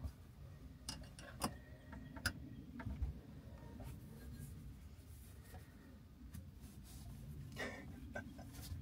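Faint, scattered clicks and light knocks of hands and tools working on hoses and fittings in a boat's engine compartment, over a low steady hum. The sharpest clicks fall in the first three seconds, with a few more near the end.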